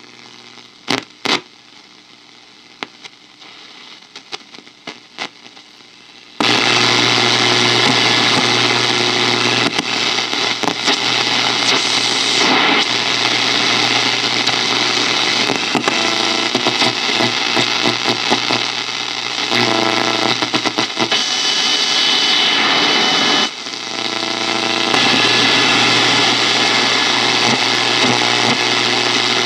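Sanyo Campanetta seven-band radio's speaker hissing with loud shortwave static, with a low hum under it, as the dial is tuned around 10 MHz. A few clicks come first; the hiss comes on suddenly about six seconds in and dips briefly a few times as the tuning moves.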